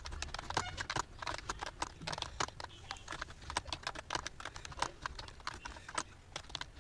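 Computer keyboard being typed on rapidly: a steady stream of keystroke clicks, several a second.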